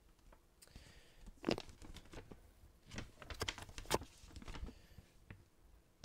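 Folded paper instruction manual rustling and crinkling as it is handled and turned over, in scattered soft crackles.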